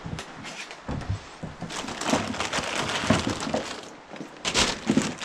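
Irregular knocks, clatter and rustling of someone handling things and moving about in a small room. The busiest stretch is about two seconds in, with another cluster near the end.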